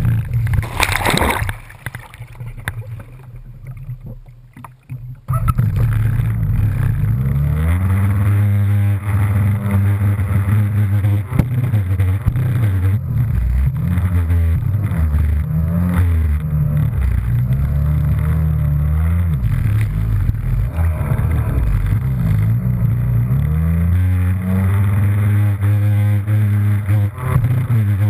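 Jetski engine revving up and down repeatedly, with water spray hitting the hull and camera. Near the start there is a loud splash, then the sound drops low and dull for about three seconds before the engine comes back in full.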